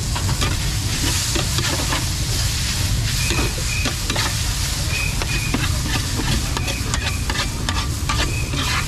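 Food sizzling as it fries in a pan, with metal utensils scraping and clicking against it many times, over a steady low rumble.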